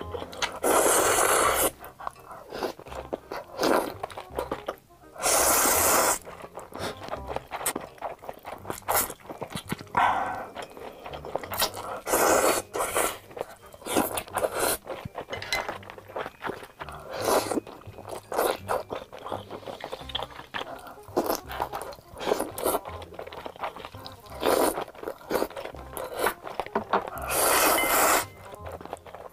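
Noodles slurped loudly in several long pulls, about a second each, with wet chewing and lip smacking in between.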